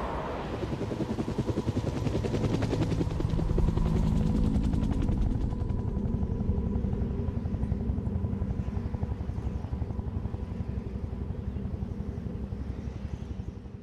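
Military helicopter's rotor chopping in a fast, steady beat. It swells over the first few seconds, then slowly fades.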